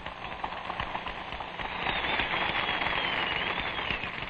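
A large convention crowd applauding, a dense crackle of clapping that swells to its loudest about two seconds in and then eases. A faint high whistle wavers over it through the middle.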